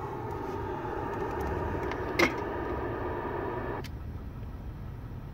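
Steady low hum inside a car, with a faint drone over it that stops a little before four seconds in. A sharp click comes about two seconds in, and a softer tick where the drone stops.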